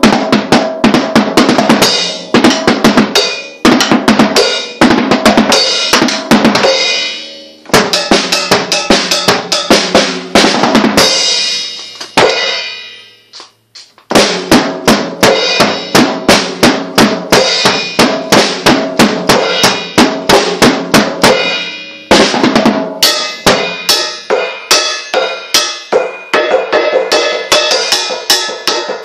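Drum kit played in a fast solo: rapid snare, tom and bass drum hits with cymbals, stopping for a couple of seconds about halfway through and with two shorter breaks.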